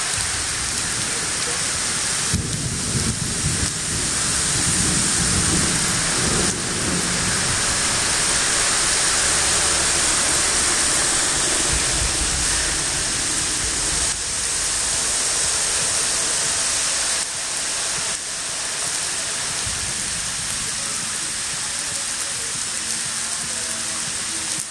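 Heavy rain pouring onto lake water in a thunderstorm, a steady hiss, with deep thunder rumbling twice in the first half.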